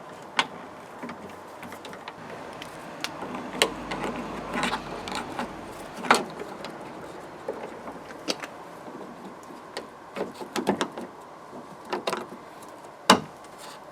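Scattered clicks and light knocks of the rear door's lock parts being handled and fitted inside the van door, with a sharper knock near the end.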